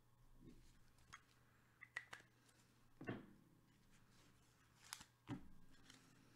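Near silence, broken by a handful of faint taps and rustles of trading cards being handled.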